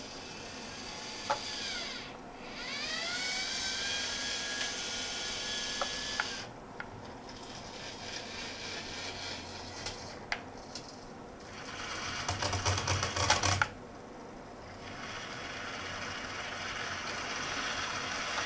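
DC gear motors of a 3D-printed robot arm driving its joints: whines that rise in pitch as a motor spins up and then hold steady, with a few sharp clicks. Near the end a louder rattling stretch lasts about a second and a half.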